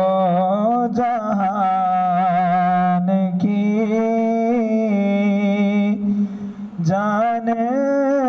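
A man singing an Urdu naat unaccompanied into a microphone, holding long notes with a wavering, ornamented melody, with a short break for breath about six seconds in.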